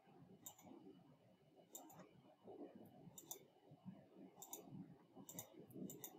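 Several faint computer mouse clicks at irregular intervals, each a quick press-and-release pair, over near silence.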